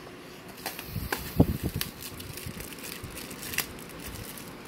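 Clear plastic wrap crinkling as a bundle of small bottles of fogging liquid is picked up and handled, with irregular crackles, a few light knocks about one to two seconds in and a sharp click later.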